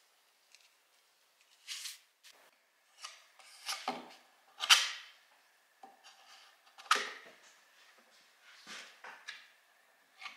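A small knife scraping in separate strokes, mixing a paste of sanding dust and wood glue and pressing it into the gaps of a hardwood tabletop as filler. The strokes come a second or two apart, the loudest a little before the middle.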